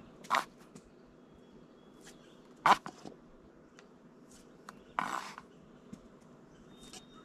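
A plastic knife scraping and knocking in a lidded tin as something is scooped out: three short, sharp sounds a couple of seconds apart, the middle one loudest and the last a slightly longer scrape.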